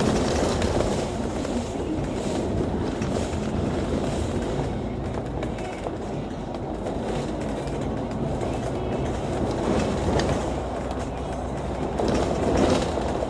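Cabin noise of a Volvo B9TL double-decker bus under way: a steady low engine and road rumble with light rattling from the body.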